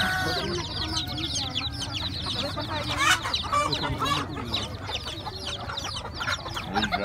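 Many young chicks peeping at once, a dense stream of short, high, falling chirps.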